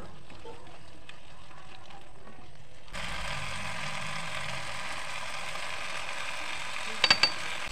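Onion-tomato masala with peas sizzling in a nonstick frying pan as it is stirred; about three seconds in the sizzle becomes louder and steadier. A few sharp clicks, one with a brief high ring, come near the end.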